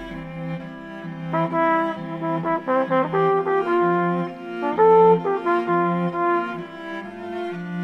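Trumpet parts multitracked by one player, playing slow held notes in harmony, with the chords changing about once a second.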